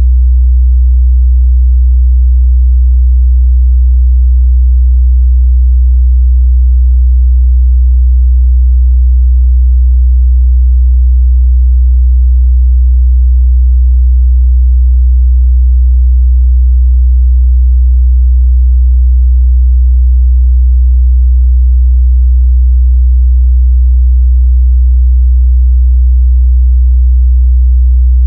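Steady 62 Hz sine-wave test tone, a pure, unchanging low bass hum.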